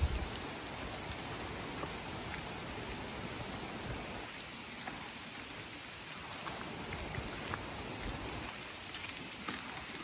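Steady hiss of a rocky stream rushing over stones, with scattered faint ticks and a low thump right at the start.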